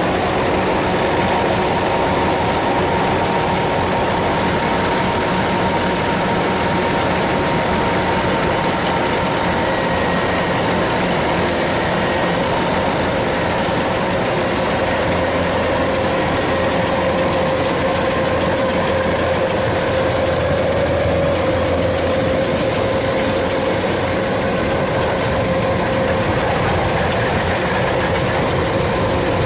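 Kubota DC105X combine harvester running steadily at work, its diesel engine and threshing machinery making a continuous mechanical noise with a few held tones.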